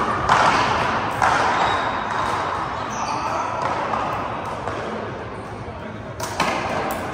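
Sharp smacks of a rubber handball echoing around a large indoor court: two near the start, and a quick cluster about six seconds in as the ball is served off a hand and into the front wall.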